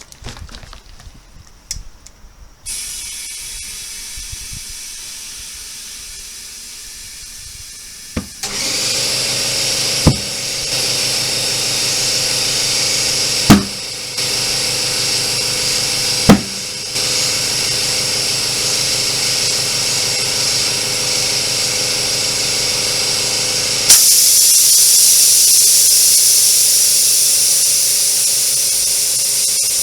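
Compressed air hissing steadily into a car tyre, with an air compressor running underneath from about eight seconds in. Three sharp bangs come partway through, and the hiss gets louder near the end.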